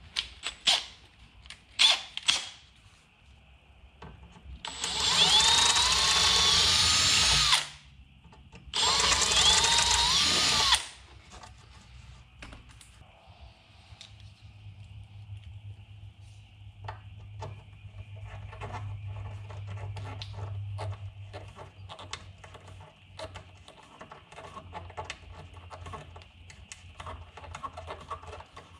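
Cordless drill run twice, for about three seconds and then about two, its motor pitch rising and falling as the trigger is worked. Scattered light clicks and knocks of handling come before and after.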